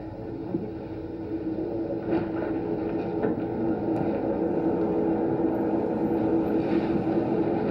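A steady, even hum with a constant low droning tone over a background hiss.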